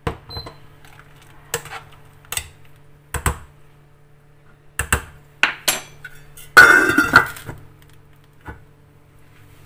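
A metal spoon knocking and clinking against a stainless steel soup pot several times, then a louder ringing clatter as the steel lid is set onto the pot, a little past halfway.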